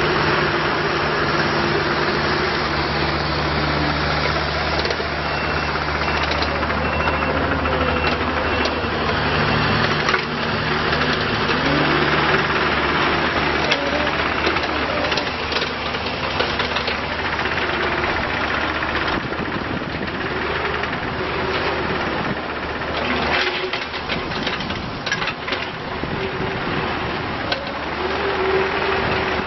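Diesel engine of a 2010 Bobcat E42 mini excavator running, with a tone that rises and falls in pitch several times as the machine works. A cluster of sharp knocks and clanks comes about three quarters of the way through.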